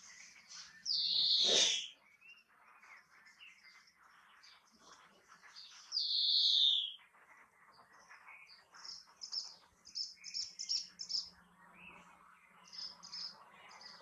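European greenfinch singing: two long, wheezy notes falling in pitch, about a second each, the first about a second in and the second about six seconds in. They are followed over the last few seconds by clusters of short, high twittering notes.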